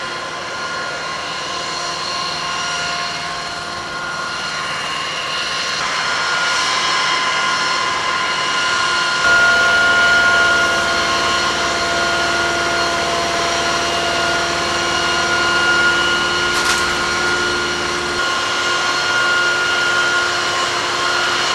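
Steady jet-turbine whine on an airfield ramp, several high tones held over a rushing noise, stepping up a little in level and low rumble about nine seconds in.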